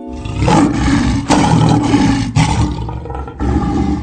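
Loud animal roaring, a sound effect set to rhinoceros footage: a run of about four rough roars, each breaking off about a second after the last.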